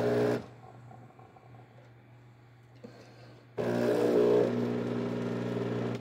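KitchenAid semi-automatic espresso machine's vibratory pump buzzing while brewing a double shot. A short burst comes at the start, then only a low hum, then the pump runs steadily again from about three and a half seconds in.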